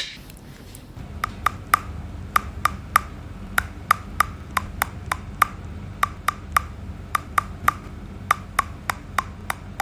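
Sharp, wood-block-like clicks in a steady run of about three a second, starting about a second in, over a faint low hum.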